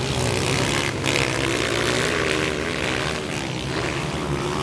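Motocross motorcycle engines running hard on a dirt track, the engine note rising and falling as the riders work the throttle.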